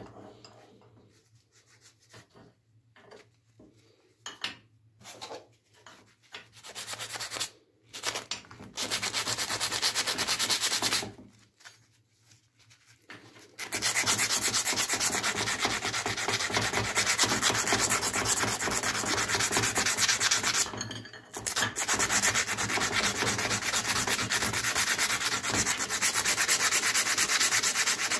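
Hand file rasping on a spring-steel knife blank in fast back-and-forth strokes. Short, separate strokes at first, then continuous rapid filing from about halfway in, with a brief pause near the end.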